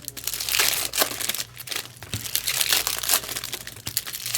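Trading card pack wrappers crinkling and tearing as packs are ripped open, in quick, uneven crackles.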